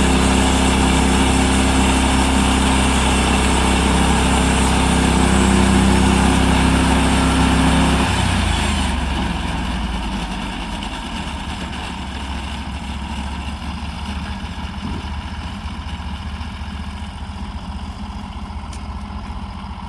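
Small gasoline engine of a log sawmill running steadily at working speed, then easing off about eight seconds in and running on more quietly.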